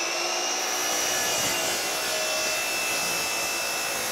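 HiKOKI sliding compound miter saw running at full speed, its blade cutting down through a steamed beech board: a steady high-pitched whine over the noise of the cut.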